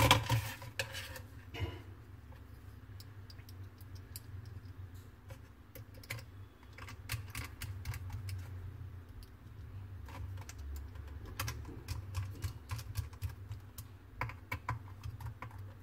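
Small screwdriver fastening screws into a laptop hard drive's mounting bracket, with light irregular clicks and taps of small metal parts being handled, over a low steady hum.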